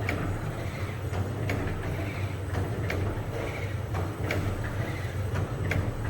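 Bakpia production machine running: a steady motor hum with a sharp clack about every one and a half seconds as it works through its cycle.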